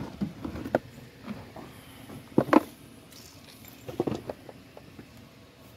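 Knocks and clatters of discarded baby gear being handled on asphalt, in several short clusters. The loudest is a pair of knocks about two and a half seconds in.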